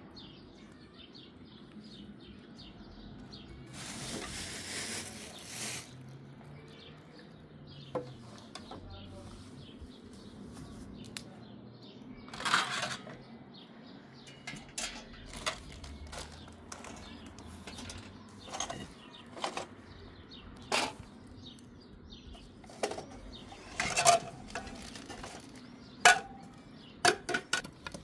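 Scattered clinks and knocks of dishes and utensils being handled, coming more often near the end, with a rustle lasting about two seconds about four seconds in.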